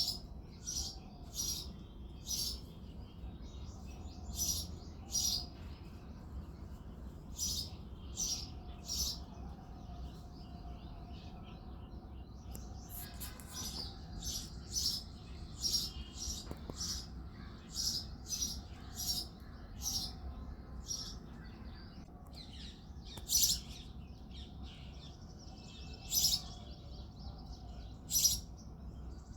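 Male house sparrow chirping: short, high chirps repeated in runs throughout, with a few louder single chirps in the last third, over a steady low background hum.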